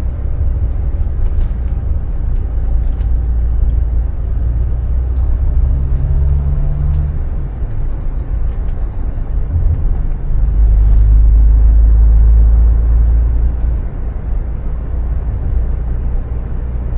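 A car driving, heard from inside the cabin: a steady low rumble of engine and road that swells louder for a few seconds about ten seconds in.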